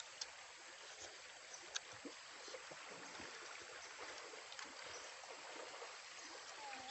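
A steady, faint outdoor hiss like running water, with a few soft clicks and ticks from a boy handling and biting into grilled chicken.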